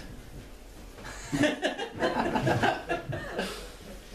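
Laughter from a small audience, swelling about a second in and fading away near the end.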